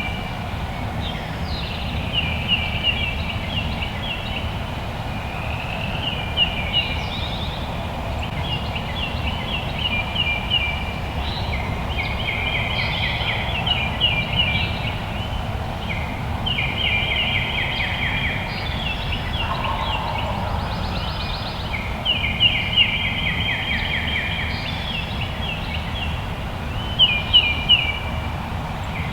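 Woodland birds singing short, rapid trilled songs one after another, over a steady low rumble of wind or outdoor noise.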